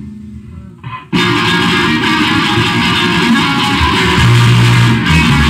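Guitar-led band music: soft low notes, then about a second in the full band comes in loud and keeps playing.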